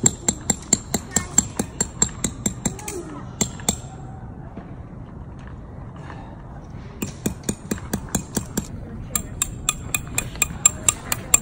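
Hammer driving metal tent stakes into the ground: a quick run of ringing metallic strikes, about three a second. The strikes stop for about three seconds midway, then start again.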